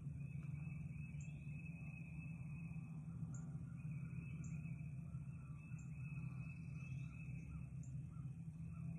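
Faint wild birdsong: short high chirps about once a second, a few quick upward-sliding notes, and a run of repeated lower notes in the second half. Under it runs a steady low hum, the loudest sound.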